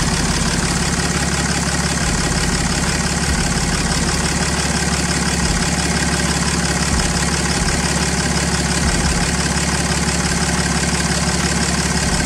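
A 6.7 L Cummins inline-six turbo-diesel in a Dodge Ram 2500 idling steadily on fresh oil just after an oil change.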